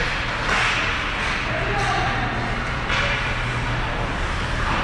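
Ice-rink ambience during a youth hockey game: indistinct voices echoing in the arena, with a few short scraping swells, over a steady low hum.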